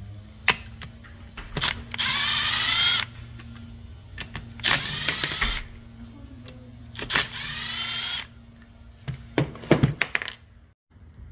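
Cordless Milwaukee drill-driver with a socket extension spinning out the valve cover bolts on a Honda GX160 engine: three short runs of about a second each, its motor whine bending in pitch as it speeds up, with clicks of the socket and bolts between runs. Near the end there is a quick clatter of knocks.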